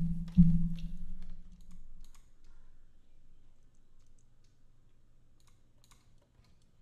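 Sparse clicking of a computer mouse as menus are opened and a dialog is answered. It opens with two low thumps and a low hum that fades within about two seconds.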